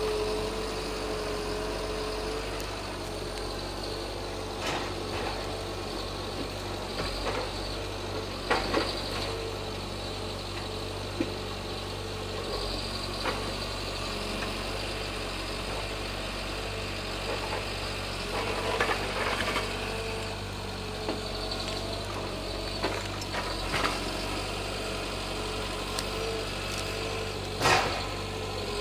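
John Deere 810E forwarder running steadily while its crane loads logs, with a constant hum and whine. About half a dozen sharp knocks of logs striking the load are spread through it, the loudest near the end.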